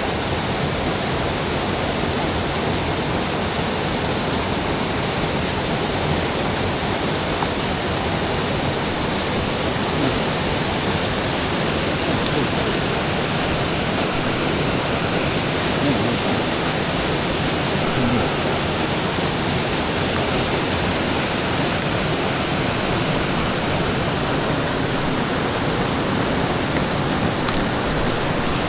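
Rushing water of a mountain stream, a steady, even roar of falling and tumbling water that holds unchanged throughout, then cuts off abruptly at the very end.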